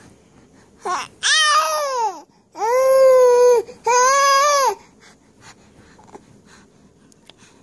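A baby vocalizing: three loud, high-pitched calls, each about a second long and arching up then down in pitch, with a short lower sound just before the first.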